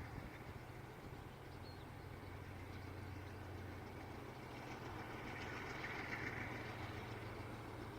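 GE C36-7i diesel-electric locomotive's 16-cylinder FDL diesel engine running steadily with a low hum, a little louder around six seconds in.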